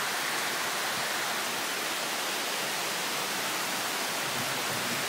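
Heavy tropical downpour: rain pouring down in a steady, even hiss.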